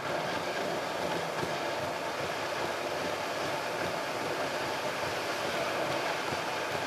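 Steady road and tyre noise of a car driving through a road tunnel, heard from inside the cabin. It steps up a little in loudness just as the car enters the tunnel.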